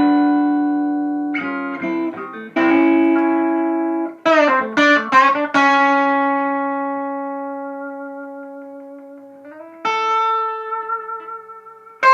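Electric guitar playing a slow melodic phrase: long sustained notes with vibrato, a quick run of bent notes about four to five seconds in, then a long note dying away before a last vibrato phrase near the end.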